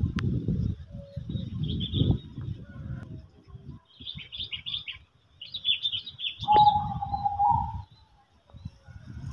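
Birds chirping in short, high twittering runs, with one longer, lower held call starting about two-thirds of the way in. Loud bursts of low rumble come and go underneath and are the loudest sound.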